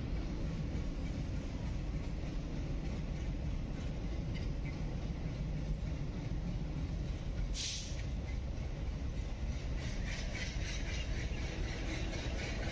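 Broad-gauge passenger train hauled by a WDM3A diesel locomotive, heard from on board as it runs along the track: a steady rumble, with a brief hiss about seven and a half seconds in and a light rhythmic clatter of the wheels over the rails near the end.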